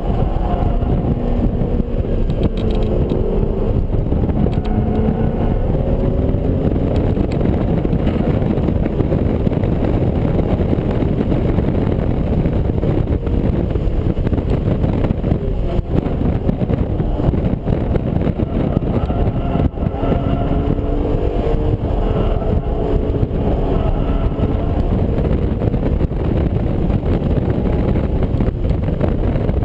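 BMW Z4 M Coupe's S54 straight-six heard from inside the cabin at racing speed, its pitch climbing and falling repeatedly as the revs rise and drop, over loud wind and road noise.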